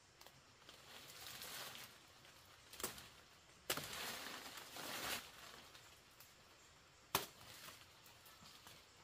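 Three sharp knocks, spaced a few seconds apart, with stretches of rustling noise between them.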